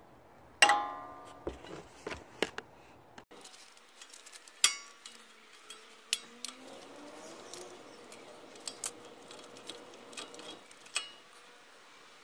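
Metal clinks and clicks as groove-joint pliers and steel brake-pad shims are handled against a disc-brake caliper. A sharp, ringing metal clink just over half a second in is the loudest, followed by many lighter ticks and taps.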